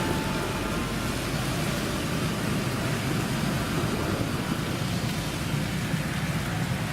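Steady heavy rain: a dense, even hiss with a low rumble underneath, unbroken throughout.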